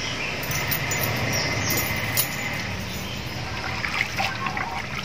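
Water trickling and splashing around cut potato strips soaking in a bowl of ice water, a steady trickle with a few sharp splashes in the first couple of seconds.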